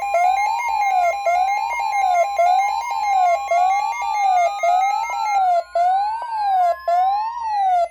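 Weather radio emergency alert alarm: a siren-like tone warbling up and down about once a second, over a steady higher alert tone that stops shortly before the end. A further tone slowly rises in pitch from about three seconds in.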